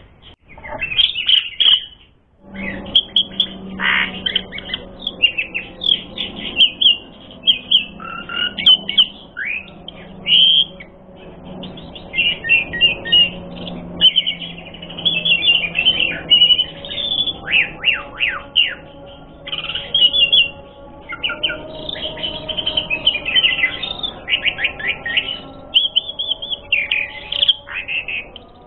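Asian pied starling (jalak suren) singing a long, non-stop song of rapid chirps, whistled slides and squawky notes.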